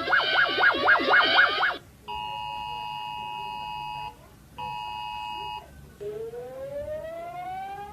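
A fast warbling alarm tone, sweeping up and down about four times a second, cuts off. It is followed by two steady blasts of the Emergency Alert System's two-tone attention signal, the first about two seconds long and the second about one second. Then a siren begins to wind up, slowly rising in pitch.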